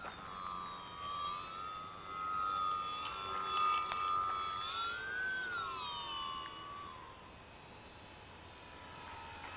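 Electric motor and propeller of a DW Foamies Juka 40-inch foam RC aerobatic plane whining in flight. The pitch holds steady, rises and falls again about five seconds in, and then fades away near the end.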